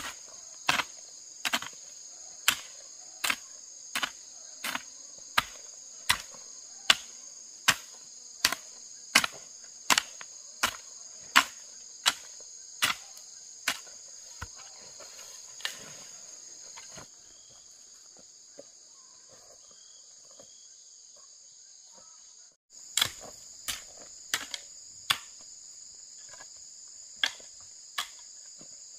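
Repeated sharp strikes of a hand tool, about one every three-quarters of a second, pausing for several seconds past the middle and then resuming less regularly. Insects drone steadily and high-pitched throughout.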